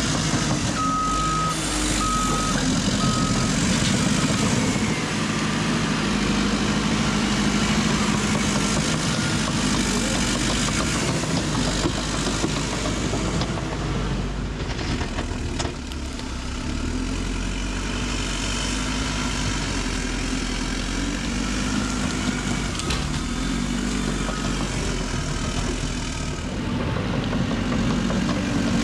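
Diesel heavy-equipment engine running steadily under work, with a backup alarm beeping three times about a second apart near the start.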